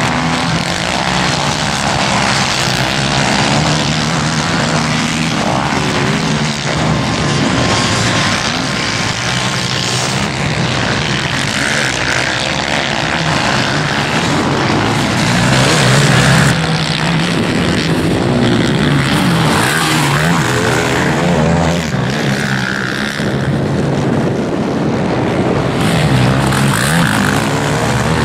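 Several sport quad (ATV) engines running hard and revving, a continuous, loud engine sound that rises and falls as the quads ride round a dirt track.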